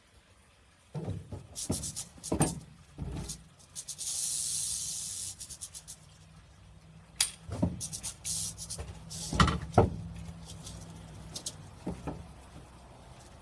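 Metal snake tongs knocking and scraping on a pickup's corrugated steel bed as rattlesnakes are grabbed, a clatter of separate knocks. About four seconds in, a rattlesnake's rattle gives a high, steady buzz for a second and a half.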